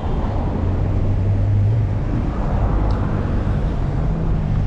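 Road traffic: vehicle engines running and tyre noise, with one engine's low drone loudest in the first half.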